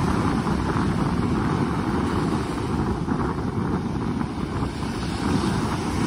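Wind buffeting the microphone over small waves breaking and washing up a sandy beach, a steady rushing noise with an uneven low rumble.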